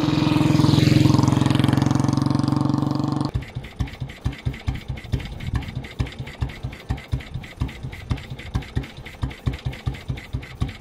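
Horex Regina single-cylinder motorcycle engine running steadily under way, then, after an abrupt cut about three seconds in, idling with an even beat of about four to five firing pulses a second.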